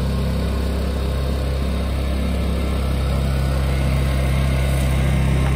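Two portable inverter generators running side by side, a steady engine hum that grows a little louder in the second half.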